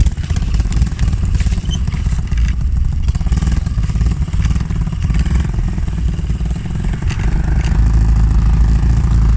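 Monkey bike's small engine running steadily as the bike is ridden along.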